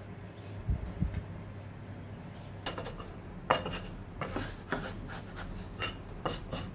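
Stainless-steel bench scraper chopping down through pastry dough onto a wooden board: a series of sharp knocks with a brief metallic ring, starting a little before halfway, after a couple of soft low thumps about a second in.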